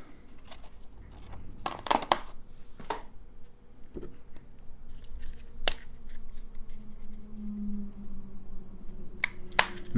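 Scattered light clicks, taps and scratchy rubbing from hands handling small tools and parts on a workbench, over a faint steady hum.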